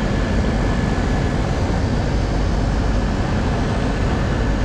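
Rooftop air-conditioning unit running with both stages on: its condenser fans and compressors make a steady, loud whooshing drone with a faint steady high tone.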